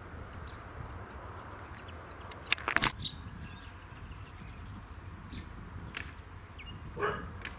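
Outdoor ambience with a low rumble of wind and a few short, high bird chirps, broken by a loud cluster of sharp cracks about two and a half seconds in and a shorter one near the end.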